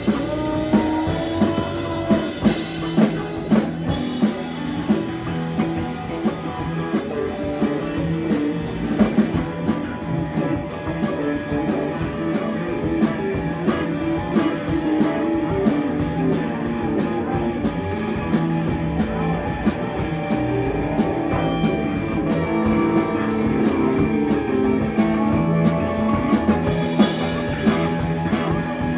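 Live rock band playing: electric guitar over a steady drum-kit beat, with cymbal strokes keeping even time.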